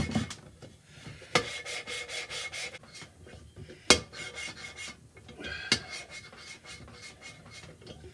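A valve being lapped into its freshly ground seat in a Caterpillar Sixty cylinder head: a gritty rasp of metal rubbing on metal through lapping compound as the valve is twisted back and forth in quick, repeated strokes. Three sharper clicks stand out.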